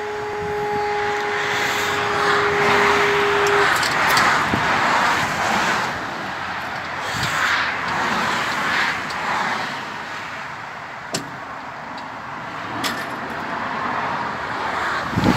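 Powered barriers of a user-operated level crossing being raised by their drive mechanism: a steady whine for the first three to four seconds, over a rushing noise that swells and fades, with a few light clicks later.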